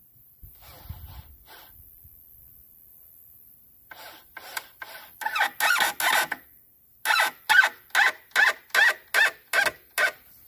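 Cordless drill run in short trigger bursts, driving a screw into a wooden board: a few uneven bursts, then about eight evenly spaced pulses. Faint knocks of the board being handled come before them.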